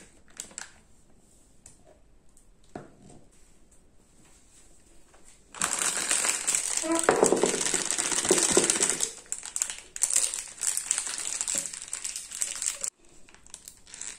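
Plastic piping bag full of filling crinkling and rustling as it is handled and its top is twisted shut. This is loud for about seven seconds through the middle. Before it come a few soft taps and scrapes of a spatula in the bag.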